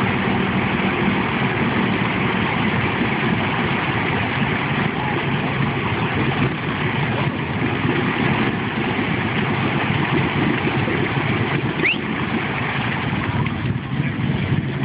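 Polaris Sportsman 850 XP ATV's twin-cylinder engine running steadily under throttle as the quad sits stuck in a mud hole.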